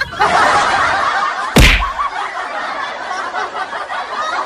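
Snickering laughter, cut by a single loud bang about a second and a half in, after which the laughter carries on more quietly.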